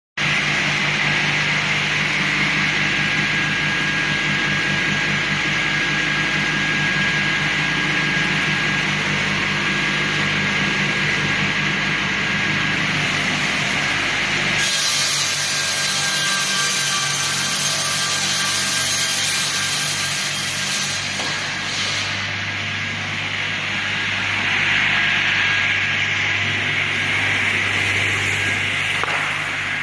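Circular-blade log sliding table saw running and sawing wood, with a steady motor hum and a high blade whine. About halfway through the low hum drops away and a brighter, hissier sawing sound takes over.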